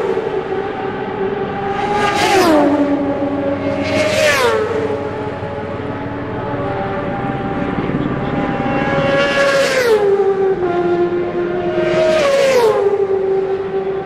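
Supersport racing motorcycles passing at full speed on a road course, each a high-pitched engine wail that drops sharply in pitch as it goes by. Four pass, about two, four, ten and twelve and a half seconds in, with the engine note of more bikes running on in between.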